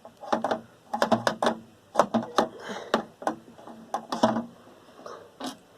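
Irregular sharp clicks and knocks from a desktop computer tower being handled as it is taken apart, with faint laughter from outside.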